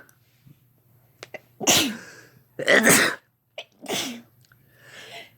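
A person sneezing three times in quick succession, about a second apart.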